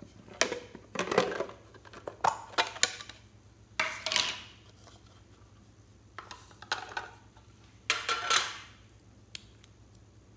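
Hard plastic makeup cases being handled over a plastic bowl: a series of sharp clicks, knocks and short scrapes, with the loudest clatters about a second in, around four seconds in, and near eight seconds in.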